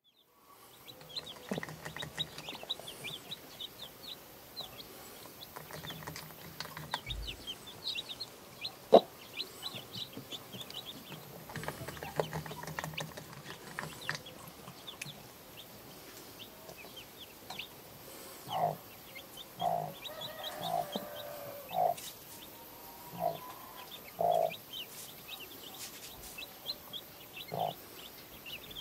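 Newly hatched chicks peeping continuously in short high cheeps under a protective broody hen. The hen gives short, low clucks, coming repeatedly in the last ten seconds. There is one sharp knock about nine seconds in.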